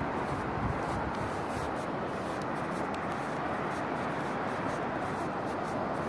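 Steady hiss of surf breaking on a flat sandy beach, with faint light crackles over it.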